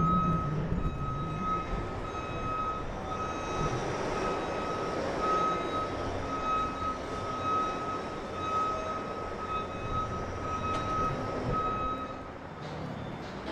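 A construction-site warning alarm beeps in a steady, high-pitched run of about two beeps a second over traffic and city noise. It stops about a second before the end.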